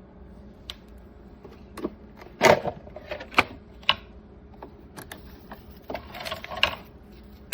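Hard plastic parts of a carpet cleaner clicking, knocking and clattering as they are handled. The loudest knocks come about two and a half seconds in, with a rattling stretch near the end.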